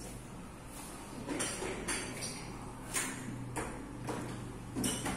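Hands handling a new Realme 6 smartphone: a handful of short scrapes and rustles as it is turned over in the fingers.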